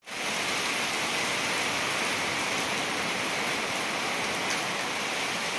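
Steady rain falling, an even hiss that holds level throughout.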